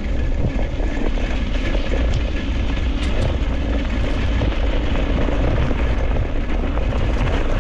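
Dog scooter rolling fast over a gravel road, its tyres crunching under steady, low wind rumble on the front-mounted microphone.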